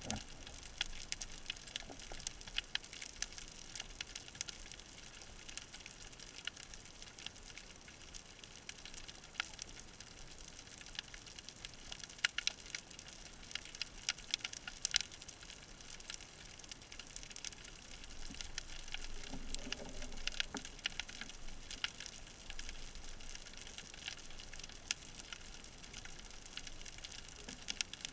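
Underwater ambience through an action camera's housing: a steady hiss with scattered crackling clicks, and a brief low sound about two-thirds of the way through.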